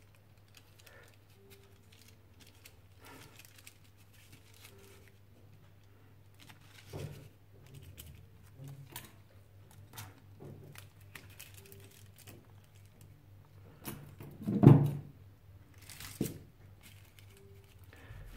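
Thin separator film and electrode foil of a disassembled Samsung 18650 lithium-ion cell being peeled apart and unrolled by gloved hands: scattered crinkling and tearing, with one much louder sudden noise about fifteen seconds in. A faint steady low hum runs underneath.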